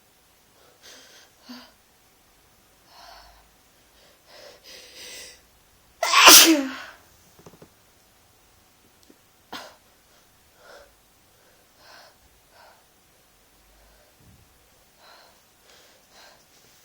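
A person with a cold sneezing once, loudly, about six seconds in, after a few quiet breaths building up to it; a few faint breath sounds follow.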